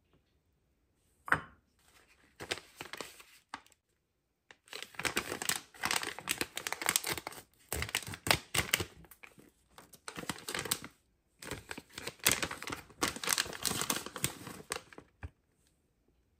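Plastic bag of shredded cheese crinkling and rustling as it is handled, in several long stretches, with a sharp tap about a second in.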